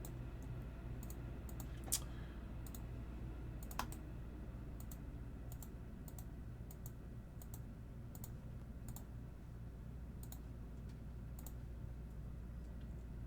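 Faint irregular clicks and crackles of a trading-card blaster box and its packs being handled and opened, with two sharper snaps about 2 and 4 seconds in, over a steady low hum.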